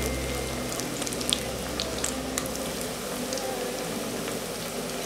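Potato noodle fingers deep-frying in hot oil: a steady sizzle with scattered sharp crackles and pops.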